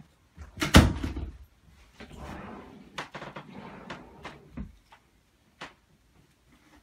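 A loud knock about a second in, then clothes rustling as a shirt is pulled out and shaken, with a few lighter knocks and clicks.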